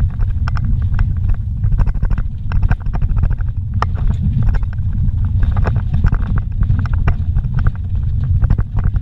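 Vehicle driving slowly over a rough dirt road, heard from inside the cabin: a steady low rumble with frequent small knocks and rattles, and one sharper knock about four seconds in.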